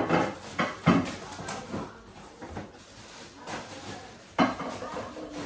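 Kitchen handling noise: dishes and utensils clattering, with three sharp knocks, one at the start, one about a second in and one near the end.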